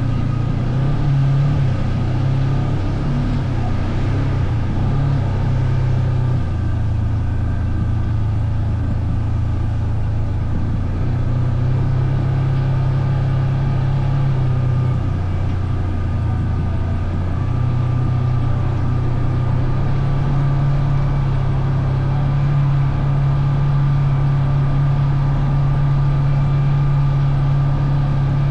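Off-road vehicle engine running under way at a steady speed, its pitch dropping and picking back up a couple of times before settling at a constant drone.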